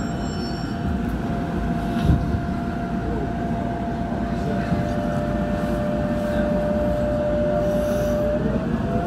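Alstom IGBT traction inverter of an Incheon Metro Line 1 train, heard from inside the car as the train pulls out of a station: one steady whine over the rumble of the car, which near the end turns into several whines rising together in pitch as the train speeds up. One thump about two seconds in.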